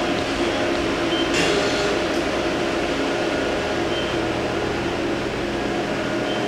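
1990 Mori Seiki SL-15MC CNC turning center running: a steady mechanical hum made of several held tones, with a short hiss about a second and a half in.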